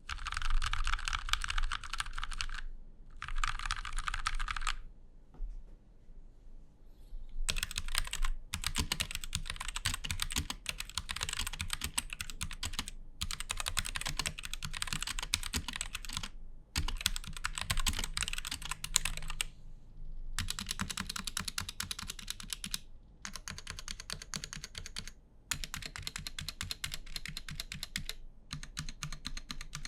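Typing test on a Rexus Daxa M61 60% mechanical keyboard in an aluminium case, built with EVA foam and lubed stabilizers: runs of rapid key clacks a few seconds long with short pauses between them. The sound is damped by the foam.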